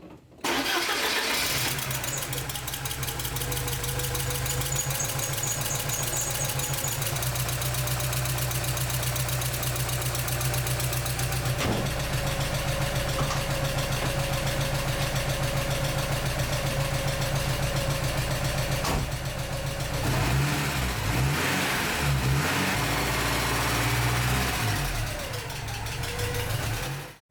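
1986 Porsche 944 Turbo's turbocharged 2.5-litre four-cylinder engine starting and then running steadily, now that the blown fuel-pump fuse has been replaced and fuel pressure is restored. Over the last several seconds the engine note goes up and down unevenly.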